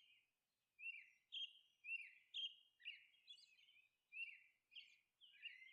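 Faint bird chirping: a string of short chirps that slide downward in pitch, about two a second.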